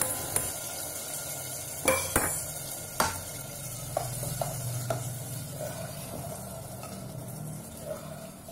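A spatula stirring kidney beans into sizzling masala in a pressure cooker, with a soft frying sizzle underneath and several sharp knocks of the spatula against the pot during the first half.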